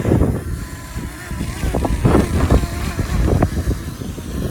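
Strong wind buffeting the microphone: a heavy, gusty low rumble that swells and dips.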